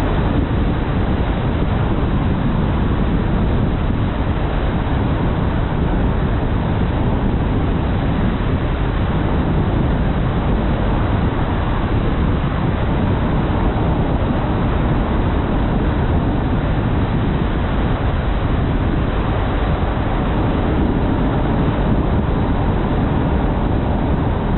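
Steady road and wind noise of a car driving along a highway, a low rumble that holds level throughout.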